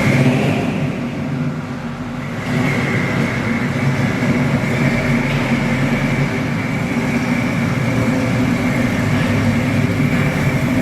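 Car engine running steadily, a little louder after about two seconds.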